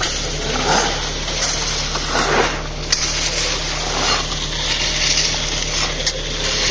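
Construction work sounds: a machine engine runs with a steady low hum, under repeated scraping and clattering, like shovels working concrete or mortar into metal pans.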